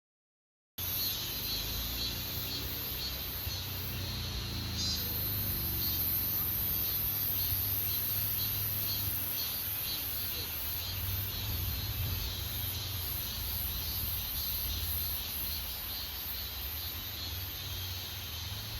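Insects chirring in a steady, high-pitched drone over a low rumble, starting after a brief silence.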